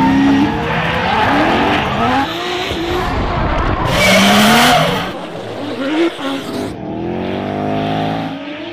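Drift-car engines revving up and down with tyres screeching, in several short cuts that change abruptly. The loudest screech comes about four seconds in. Near the end an engine revs up steadily.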